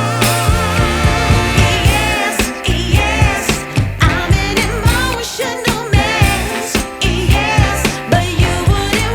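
Background pop music with a steady beat and a wavering sung or vocal-like melody.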